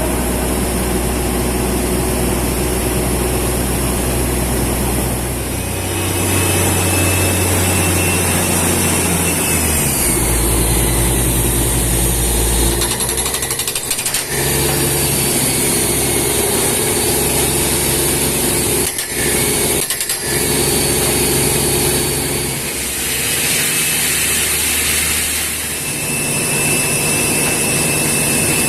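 Lorry-mounted borewell drilling rig drilling into rock: its engine and air compressor run loud and steady under the hammering of the drill. The engine note shifts pitch a few times and dips briefly twice near the middle.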